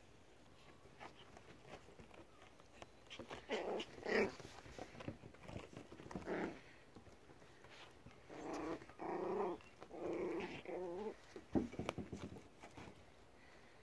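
Five-week-old Pomsky puppies vocalising in play. There are a few short calls early on, then a cluster of longer calls of about a second each past the middle, among scattered small clicks and one sharp knock near the end.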